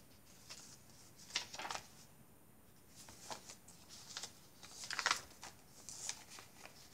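Paper rustling as the pages, tags and cards of a handmade paper journal are handled and a page is turned: a few short rustles, the loudest about five seconds in.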